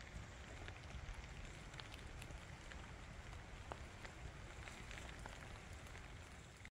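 Rain falling steadily: an even hiss with scattered sharp drop ticks, over a low rumble.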